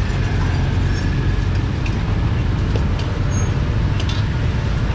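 Steady low rumble of street traffic, with a few faint clicks about three and four seconds in.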